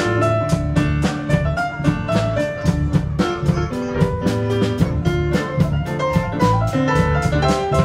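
Live rock band playing: a drum kit keeps a steady beat under electric guitar and keyboard.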